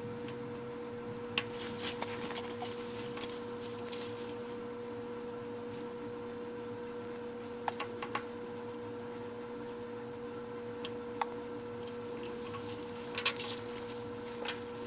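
Scattered light crackles and ticks of thin plastic protective film being peeled off strips of adhesive and the back of a replacement screen, coming in small clusters over a steady electrical hum.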